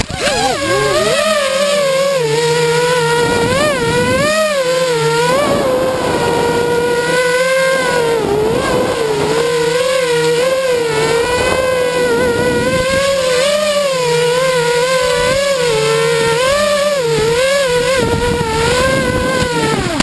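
FPV quadcopter's motors and propellers whining. The pitch rises and falls again and again as the throttle changes through the manoeuvres.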